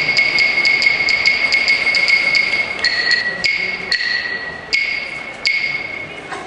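Hyoshigi wooden clappers struck in a run of sharp, ringing clacks, about three a second, spacing out and fading in the last few seconds.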